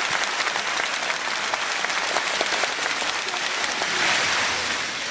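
Audience applause: a steady wash of many hands clapping, swelling about four seconds in and easing off near the end.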